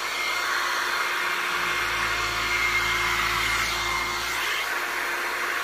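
Small handheld electric hair dryer running steadily, blowing onto a poodle's coat: an even whooshing hiss with a faint steady whine.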